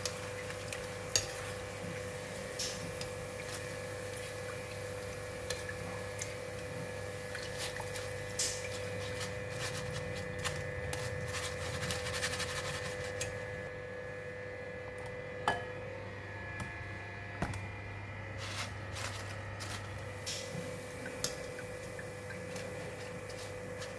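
Thin arrowhead slices deep-frying in hot oil in a stainless steel wok: a steady sizzle with scattered clicks and scrapes of a metal strainer against the wok. The sizzle thins out about halfway through, leaving occasional clicks over a steady hum.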